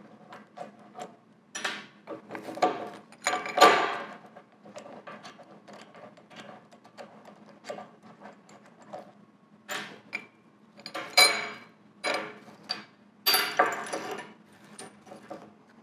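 Cast-iron parts of a small Wilton Baby Bullet bench vise clinking and knocking as the vise is taken apart by hand. Light clicks and scrapes, with a few louder clunks in three clusters: near the start, about ten seconds in, and toward the end.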